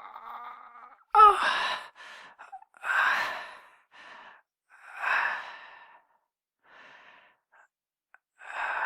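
A person in pain: a short, sharp pained cry about a second in, then a series of heavy, breathy sighs and exhalations about two seconds apart.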